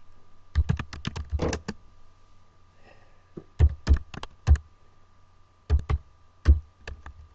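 Computer keyboard typing in three short bursts of keystrokes, each a sharp click with a low thud, as a command is typed out.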